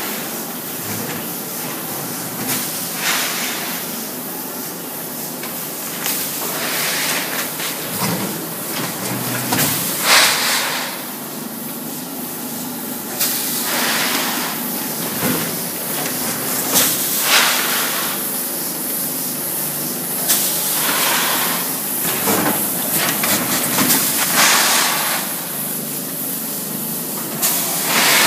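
Stainless steel vertical rice-bagging machine running, filling and sealing 5 kg bags: a steady mechanical clatter with a hiss that comes back every three to four seconds as each cycle works through.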